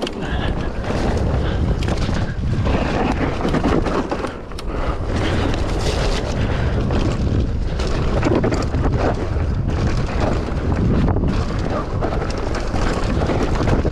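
Mountain bike riding fast down a dirt trail: wind rushing over the microphone, tyres rolling on the dirt, and the bike knocking and rattling over bumps.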